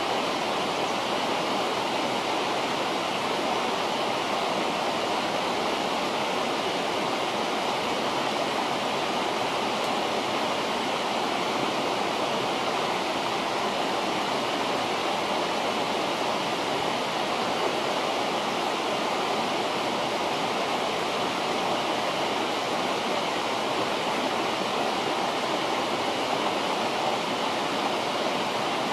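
A river running, its flowing water making a steady, unbroken rushing noise.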